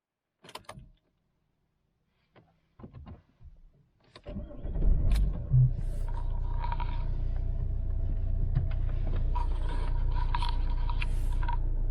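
A few light clicks and rattles, then about four seconds in the Vauxhall Insignia's 2.0 CDTI four-cylinder turbodiesel cranks, starts and settles into a steady idle. A higher tone comes and goes over the idle several times.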